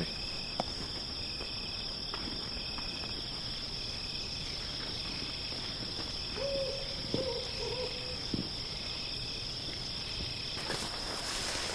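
Crickets chirping steadily, with a short high chirp repeating about once a second. About six and a half seconds in comes a low two-part bird call lasting a second and a half.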